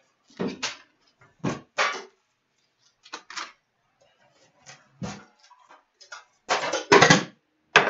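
Plastic shrink-wrap crinkling and a metal card tin being opened and emptied by hand: a series of short rustles and clanks, loudest near the end.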